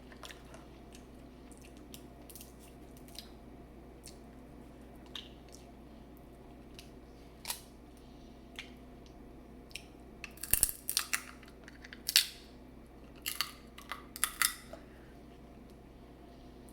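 A person eating seafood boil: quiet wet chewing with scattered small clicks, then louder clusters of sharp crackling crunches from about ten seconds in, as from shells being broken.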